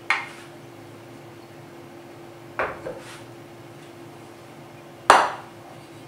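Kitchen bowls knocking as they are handled and set down on the counter: a stainless steel bowl and a large glass bowl. There are four short knocks, the loudest about five seconds in, over a faint steady hum.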